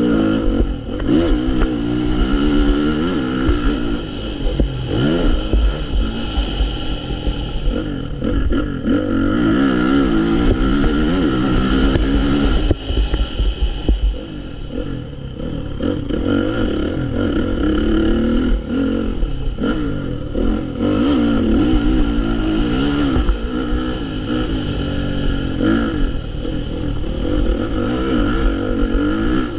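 Motocross dirt bike engine, heard from on the bike, revving up and easing off again and again as it accelerates out of corners and brakes into the next.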